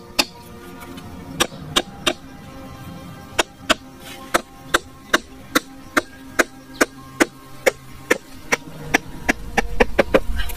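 Machete striking a small wooden peg to drive it into sandy ground: a run of sharp knocks about two or three a second, coming faster near the end. Background music plays underneath.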